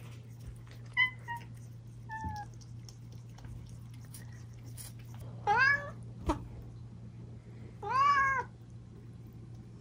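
Young tabby kitten meowing for milk: two short chirps near the start, then two full meows that rise and fall, about five and a half and eight seconds in. A single sharp tap falls between the meows, over a steady low hum.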